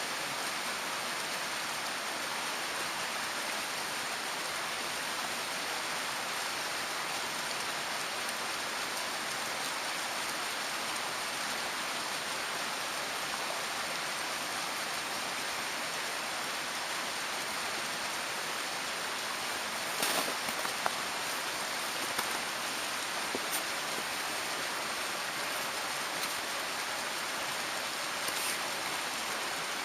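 Mountain stream rushing steadily over rocks close by, an even wash of water noise. A few light clicks or knocks come in about two-thirds of the way through.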